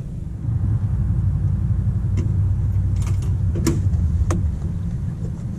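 Steady low rumble of a pickup truck's engine idling, heard through the truck body, with a few sharp clicks and rattles as a dog tracking collar is picked up and handled.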